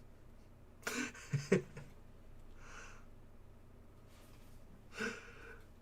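A man's breath sounds close to the microphone: a short throaty noise about a second in, then quieter breaths, one more audible about five seconds in.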